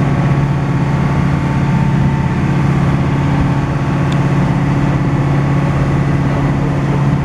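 Boat engine running at a steady speed, with an even, unchanging pitch. There is one faint tick about four seconds in.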